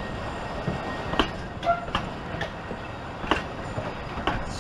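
Narrow-gauge railway passenger carriages rolling past, with a steady rumble and a few sharp clicks from the wheels on the track, spaced about a second apart.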